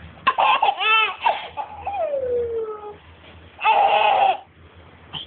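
Toddler laughing with high-pitched squeals and giggles in several bursts, including a long falling squeal about two seconds in and another loud burst of laughter near the four-second mark.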